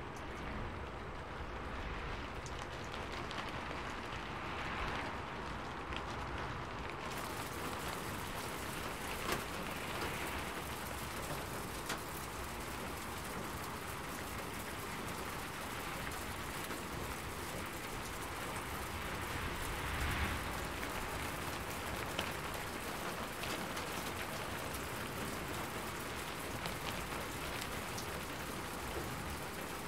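Steady rain falling, an even hiss with a few louder drop ticks scattered through it. About seven seconds in it turns brighter and hissier.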